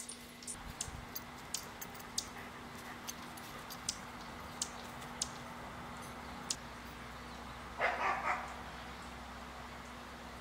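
A dog barks three times in quick succession about eight seconds in, over a steady faint background scattered with brief high ticks.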